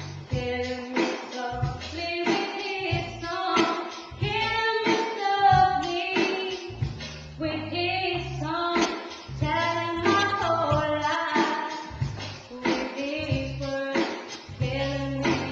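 A woman singing a slow pop song over a backing track with a bass line and a light beat.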